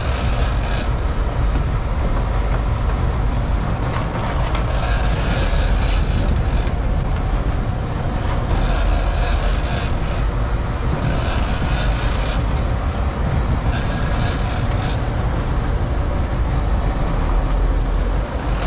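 Big-game fishing reel whining in short bursts of a second or two, about five or six times, as line is cranked in on a hooked tuna. A steady low rumble of the boat runs underneath.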